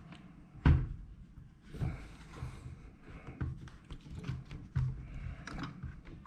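Handling noise of helmet gear being worked on by hand: one sharp knock a little under a second in, then scattered lighter taps, bumps and rustling.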